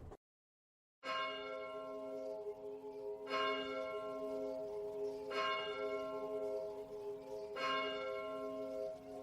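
A moment of dead silence, then a bell-like chime struck four times about two seconds apart over a slowly pulsing low tone: the sparse opening of a pop song's intro.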